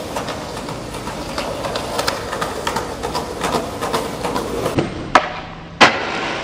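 Skateboard wheels rolling over a concrete sidewalk, ticking over the joints in the slabs. About five seconds in comes a sharp clack of the tail popping, then a hard hit as the board lands on a metal bench rack and scrapes along it.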